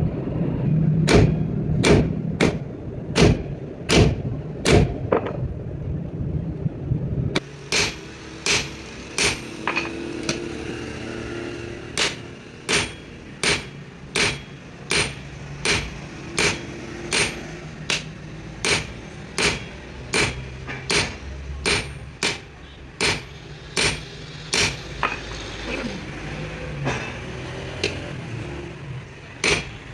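Hand hammer striking repeatedly during truck clutch plate repair work: about six blows, a pause of about two seconds, then a steady run of about one and a half blows a second.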